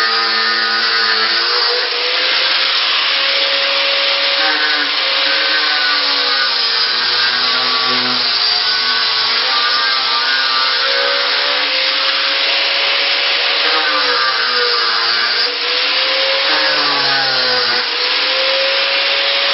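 Electric angle grinder running continuously, grinding old tile adhesive off a concrete floor. Its motor pitch wavers up and down as the disc bites into the surface and eases off, over a steady grinding hiss.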